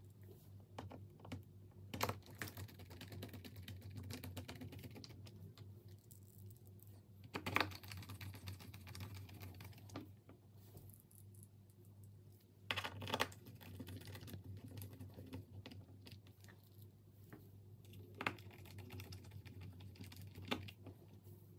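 Small precision screwdriver driving screws into the bottom cover of a Lenovo Y700 laptop: quiet ticking and scraping of the bit and screw threads, with five sharp clicks spaced a few seconds apart.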